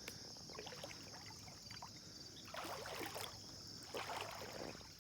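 Footsteps swishing through soaked, waterlogged grass, two heavier steps in the second half. Crickets keep up a steady high chirring throughout.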